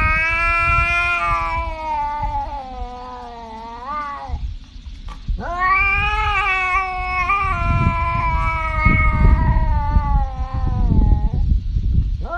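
Tabby cat yowling in long drawn-out calls: one of about four seconds that slides down in pitch, then after a short pause a longer one of nearly six seconds, and a third starting near the end, over a low rumble.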